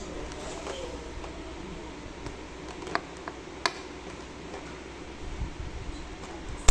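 Toy packaging being handled and opened: quiet rustling with two sharp clicks about three seconds and three and a half seconds in.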